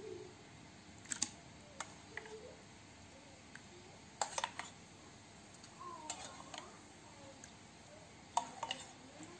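A spoon knocking lightly against the dishes in a few scattered clicks while cooked sago pearls are spooned into a bowl of creamy pandan mixture.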